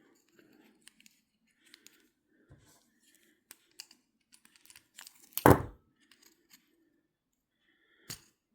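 Small metal clicks and light scrapes from an Abumatic 150 spincast reel being handled and pried apart, with one louder thump about halfway through and another sharp click near the end.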